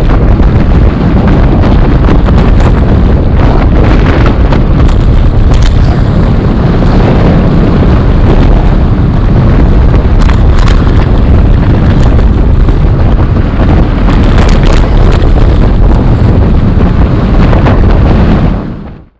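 Steady loud roar of wind buffeting an action camera's microphone as a mountain bike descends fast on asphalt, mixed with tyre noise and occasional clicks and rattles from the bike. The sound fades out sharply near the end.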